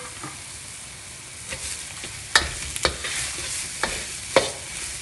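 Straw mushrooms and shiitake stir-frying in a black steel wok with a steady sizzle. A metal spatula scrapes across the wok and clanks against it several times in the second half.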